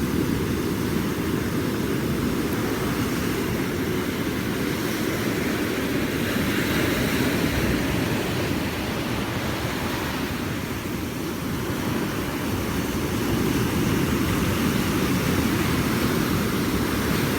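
Ocean surf washing onto a beach: a steady rush of water that swells about six seconds in and eases briefly around eleven seconds.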